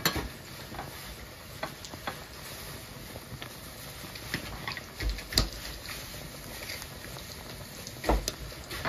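Water boiling hard in a pot of duff dumplings, a steady bubbling with many small pops throughout. Louder thumps come about five seconds in and again near the end.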